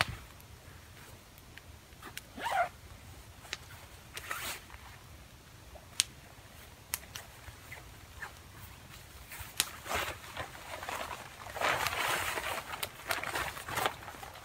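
A large heavy tarp being pulled out and unfolded, with its rustling getting louder and denser over the last few seconds. A campfire crackles and pops throughout.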